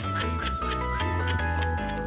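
Background music with a steady beat, a stepping bass line and held notes.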